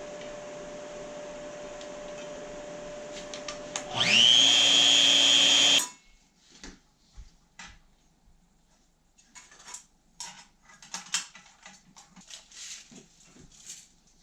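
A steady hum, then a power tool's motor spins up with a quickly rising whine, runs at full speed for about two seconds and cuts off abruptly. Scattered light clicks and knocks follow.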